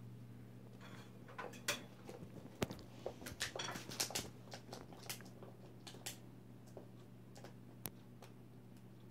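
Irregular light knocks and clicks of things being handled, bunched in the first half and sharpest about two and a half and four seconds in, over a steady low hum.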